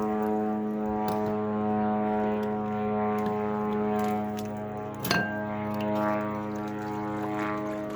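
Military surveillance drone (zannana) buzzing overhead: a steady, unbroken drone of one pitch. A short sharp knock about five seconds in.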